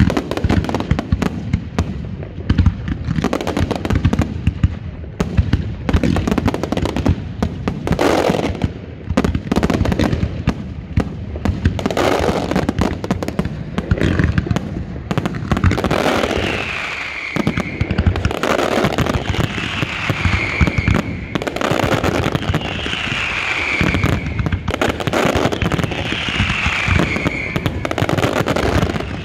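Fireworks finale: a dense, continuous barrage of launches and bursts from single-shot comets and aerial shells. From about halfway on, a high whistle that falls in pitch repeats about every two seconds.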